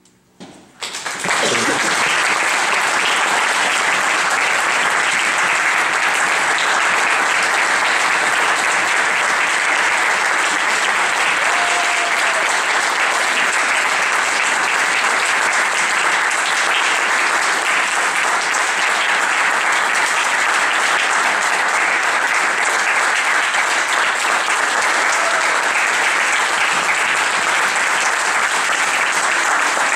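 Audience applause breaking out about a second in as the music dies away, then steady, full clapping that carries on throughout.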